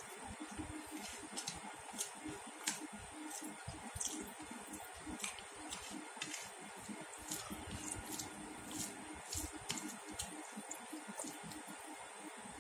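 Close-up eating sounds of rice with mashed pumpkin being eaten by hand: irregular wet clicks, smacks and squishes of chewing and of fingers mixing soft food on the plate, a few a second.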